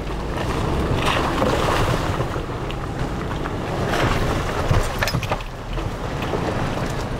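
Hummer H3T Alpha's V8 crawling slowly in four-low through a muddy rut, a low engine rumble mixed with the noise of the tyres working through mud. Wind noise on the microphone.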